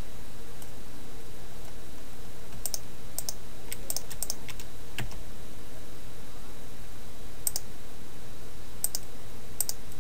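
Scattered clicks of a computer keyboard and mouse, about ten in all, bunched in the middle and again near the end, over a steady low hum and hiss.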